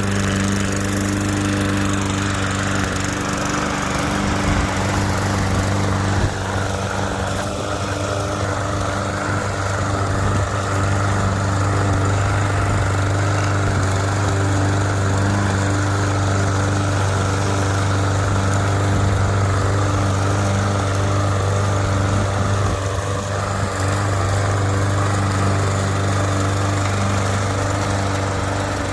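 Toro gas walk-behind lawn mower engine running steadily under load while mowing grass.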